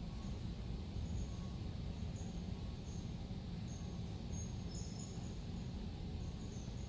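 Steady low rumble of room background noise, with faint short high-pitched chirps scattered through it.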